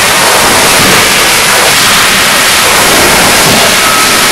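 Loud, steady, hiss-like roar of a forging shop full of running CNC forging hammers and presses, with no distinct single hammer blow standing out.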